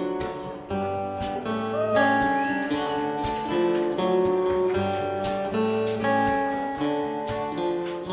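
Acoustic guitar playing a song: picked notes, with a sharp strummed accent about every two seconds.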